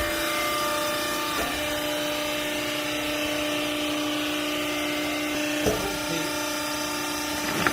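Hydraulic baling press running, its pump giving a steady whine over a mechanical hum, with two sharp knocks, one a little over halfway through and one near the end.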